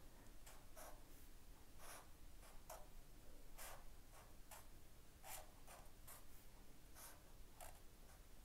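Brown Sharpie felt-tip marker drawing short strokes on paper: a faint series of brief scratches, roughly two a second.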